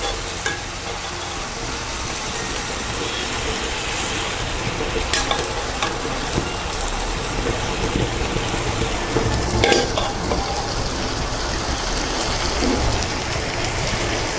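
Chickpea masala gravy sizzling and bubbling in a non-stick frying pan over a gas flame, with a few sharp knocks of a wooden spatula against the pan. A low steady rumble from the burner runs underneath.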